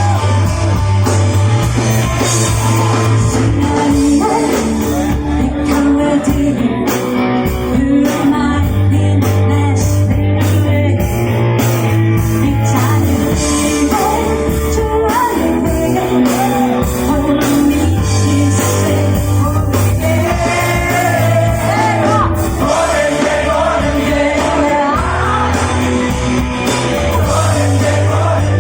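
Live rock band playing, with singing over it and a bass line in long held notes that recur every few seconds.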